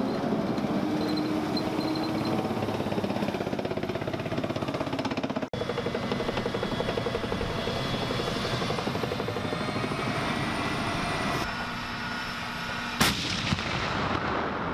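M1 Abrams tanks driving: the high whine of the AGT1500 gas turbine over the rapid clatter of steel tracks, in several short clips joined by cuts. A single sharp bang stands out near the end.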